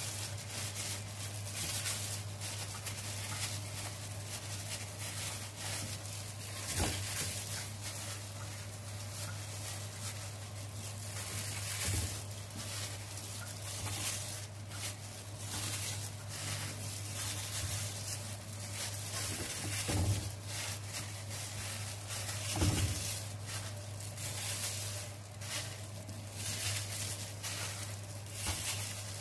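Food being handled by gloved hands as grilled potato slices are laid over kafta patties in a ceramic baking dish: light crackly handling noise with a few soft knocks, over a steady low hum.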